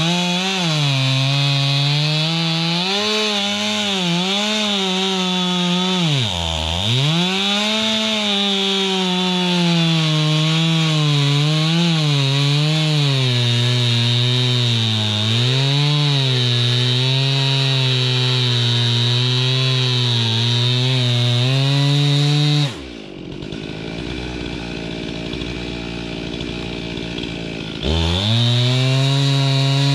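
Chainsaw running at high speed, its pitch wavering as the chain loads up in the wood, dropping sharply once and recovering a few seconds in. About two-thirds of the way through it cuts off abruptly for some five seconds, leaving a quieter even rushing noise, then comes back just as suddenly.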